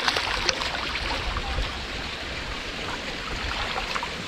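Steady rushing of running water, with a few sharp clicks in the first half second.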